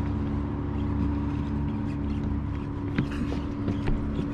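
Boat engine running steadily, a low hum with a few held tones, with a couple of faint clicks about three seconds in.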